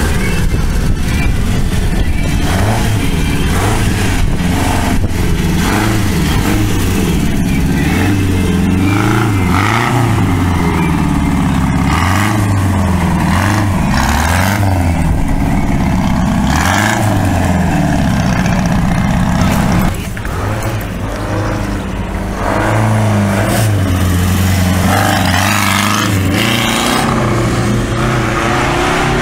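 Vintage racing car's engine running and being revved as the car pulls away slowly, its pitch repeatedly rising and falling. About two-thirds of the way through it drops away, and an engine note rises again near the end.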